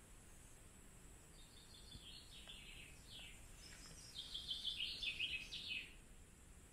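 A small songbird singing a quick run of high chirps and short falling notes. It starts a little over a second in, grows louder in the second half, and stops shortly before the end.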